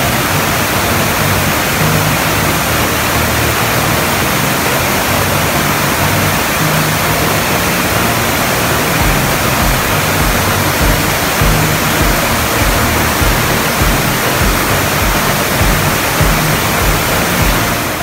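Steady rushing hiss of a waterfall cascading over boulders and rapids, with background music faintly underneath.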